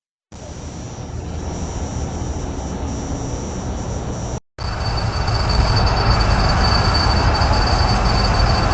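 Trail camera's built-in microphone picking up a steady rush of outdoor background noise, heavy in the low end, with a thin steady high electronic whine from the camera. Two separate clips, each cut off abruptly, with a brief dead silence between them about four and a half seconds in.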